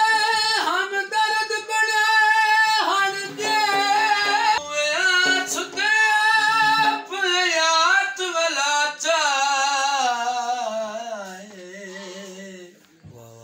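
A man singing a Punjabi folk song in long, high held notes that bend and waver, growing quieter about ten seconds in.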